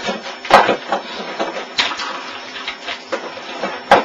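Computer keyboard clattering under a boy's hands, an irregular run of key clicks and taps with two sharper knocks, one about half a second in and one near the end.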